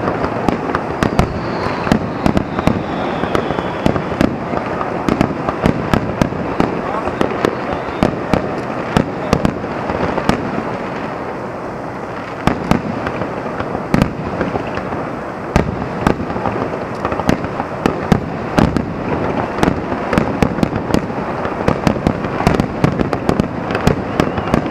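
Aerial fireworks shells bursting in quick, irregular succession, several sharp bangs and crackles a second, over a steady rumble.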